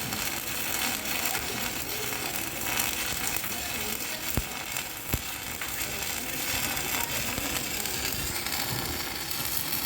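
Stick-welding arc crackling and sizzling steadily as an E7018 4.0 mm electrode burns at 130 amps, with two sharp clicks about halfway through.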